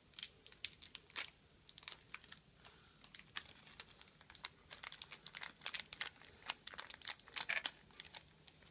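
Small plastic candy wrapper crinkling in a child's hands as it is worked open, a rapid, irregular run of faint crackles.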